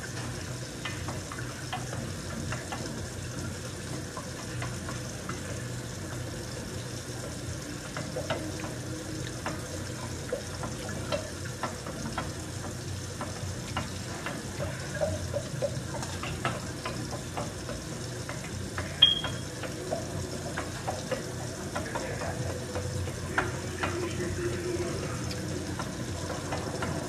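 A spoon stirring in a glass bowl, scraping and ticking lightly against the glass, with one sharper clink about nineteen seconds in. A steady hiss sits under it.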